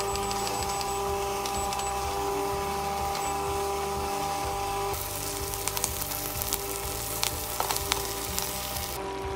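Background music with held tones. About halfway in, diced vegetables start sizzling as they sauté in the multi-cooker's pot, with a scatter of clicks as diced potatoes are tipped in.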